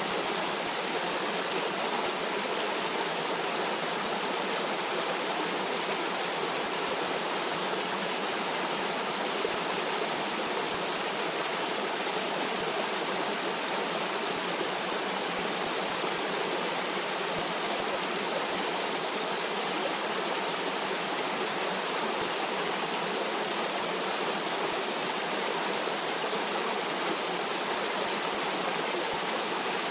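Stream water rushing and babbling steadily, an even wash of noise with no breaks.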